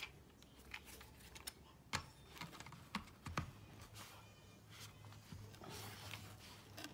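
Scattered light clicks and taps from hands handling a Hart 20V cordless drill and its battery pack while trying to fit the battery.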